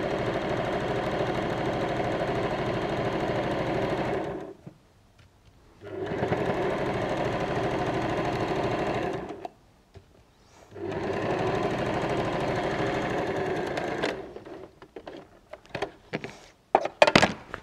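Janome electric sewing machine stitching a straight seam through layers of fabric, running in three bursts of about three to four seconds each with short stops between. After the last run come a few short clicks and rustles of handling.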